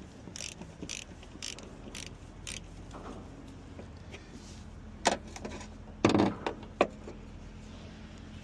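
Hand tool worked on a car's front suspension: ratchet-like clicks about twice a second, then three loud metallic knocks about five to seven seconds in.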